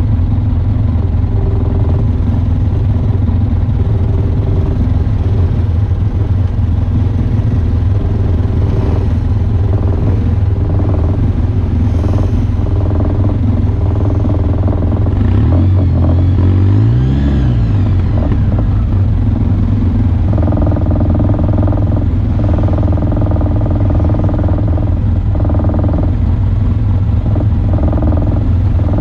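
Off-road vehicle engine running steadily under way with some clatter. Just past halfway it revs up and drops back down.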